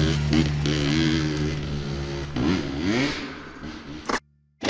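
Two-stroke dirt bike engine revving up and down, its pitch rising and falling with the throttle. It fades over the last second or so and cuts off abruptly just before the end.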